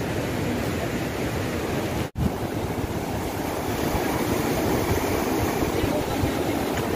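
Fast mountain river rushing over rapids and boulders: a steady rush of white water, which drops out for a moment about two seconds in.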